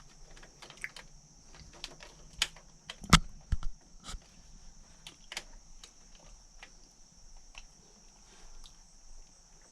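Hand work on installation parts: scattered light clicks and knocks, the loudest a sharp knock about three seconds in followed by two more, over a steady high hiss.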